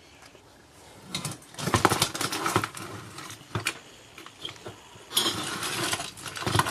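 Hard clattering, clicking and rustling of dismantled electronics parts being handled and shuffled together. The clatter starts about a second in, with a scraping, rustling stretch near the end.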